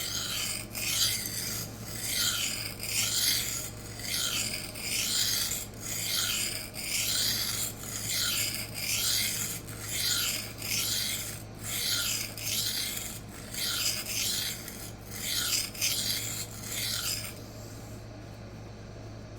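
Knife steel rasping back and forth across a coarse 400-grit CBN sharpening plate in steady strokes, about one a second, stopping near the end. The coarse grit is cutting aggressively into the edge.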